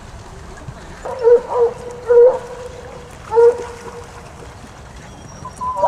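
A pack of hounds baying in long howling cries during a drag hunt. Loud cries start about a second in, come again around two seconds and three and a half seconds, and another begins near the end.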